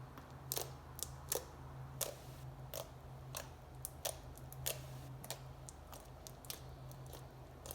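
Slime being poked with fingers, giving short squishy clicks and pops about two a second at an uneven pace.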